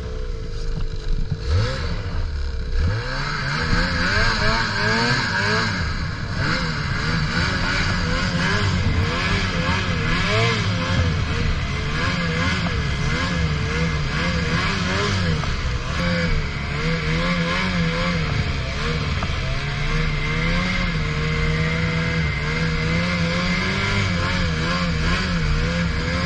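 Ski-Doo Summit 600R E-TEC snowmobile's two-stroke twin-cylinder engine running under load through deep snow, its pitch rising and falling again and again as the throttle is worked, over a constant hiss.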